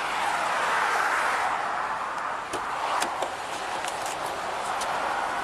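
Highway traffic passing: a steady rush of tyre and engine noise that swells and eases, picked up by a police body-camera microphone, with a few light clicks.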